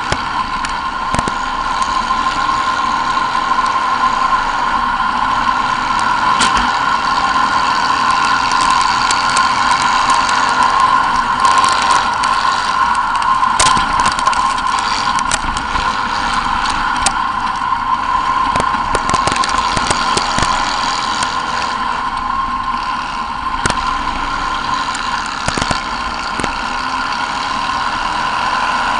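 Racing buggy's engine running hard and steady, heard from an onboard camera, with scattered sharp clicks of stones and grit striking the car.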